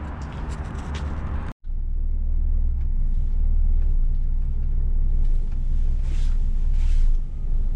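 Footsteps and outdoor noise, then, after an abrupt cut, a steady low rumble from a Scania S500 truck's diesel engine running at low revs as the truck moves slowly, heard from inside the cab.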